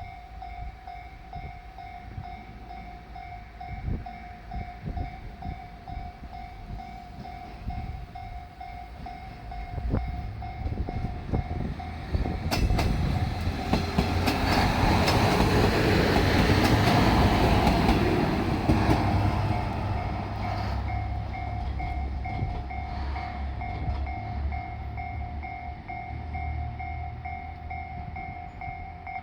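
Level crossing alarm ringing in a steady pulsing two-tone chime while a JR Shikoku diesel railcar runs past over the crossing. The rumble of its engine and wheels builds, is loudest about halfway through, then fades. The alarm cuts off near the end.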